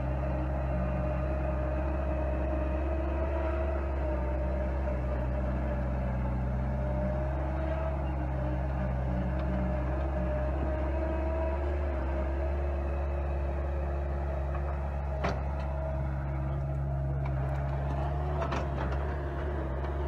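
Skid steer engine running steadily under load while its hydraulic tree saw attachment cuts into the base of a mesquite trunk. A single sharp knock comes about fifteen seconds in.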